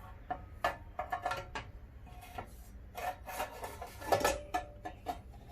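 Handling noises as a new miter saw blade is picked up and fitted onto the saw's arbor: scattered clicks, knocks and scrapes, a few of the clinks ringing briefly, the loudest a little past four seconds in.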